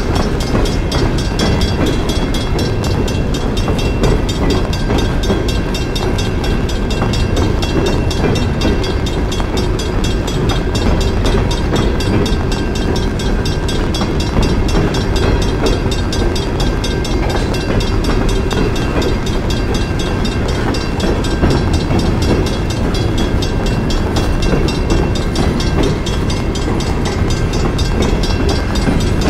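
Freight train of CSX coal hopper cars rolling steadily past, a continuous rumble and rattle of steel wheels on the rails.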